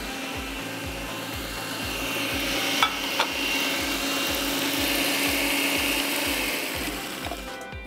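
Electric countertop food processor running, its blade chopping butter cookies and melted butter into crumbs, with two sharp clicks about three seconds in. The motor cuts off near the end.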